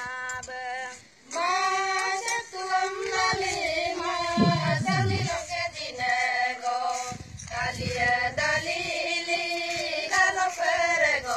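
High voices singing a melody together in held notes, with a short break about a second in.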